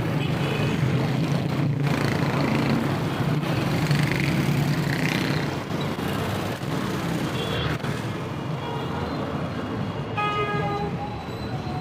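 Street traffic noise: vehicle engines running steadily, with a short horn toot about ten seconds in.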